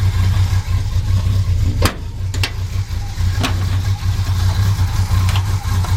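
Chevy K10 pickup engine idling steadily as it warms up after a cold start, its exhaust running through glass-pack mufflers. A few sharp ticks sound over it.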